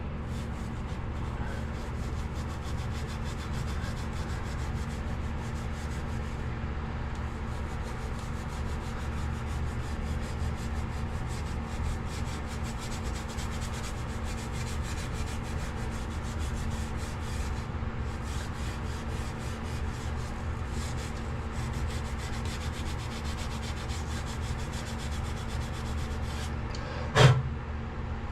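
Continuous hand rubbing and sanding as a pipe fitting's O-ring seating surface is cleaned up smooth, over a steady low machinery hum. One short knock near the end.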